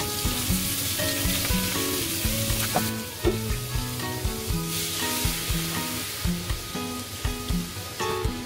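Food sizzling as it fries in a pan. The sizzle eases off for about a second and a half some three seconds in, then comes back. Background music with a steady beat plays underneath.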